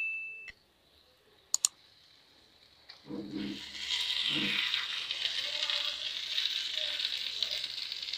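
A ringing chime fades out at the start. About three seconds in, yogurt-marinated mutton drops with soft thuds into hot oil and fried masala in a clay pot and starts sizzling steadily.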